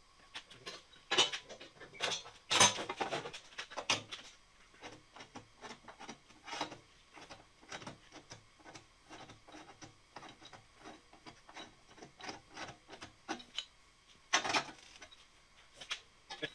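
Steel sheet-metal pan pieces being worked with a pipe wrench: scattered light clicks, knocks and scrapes of metal. A few louder knocks come in the first four seconds and again near the end.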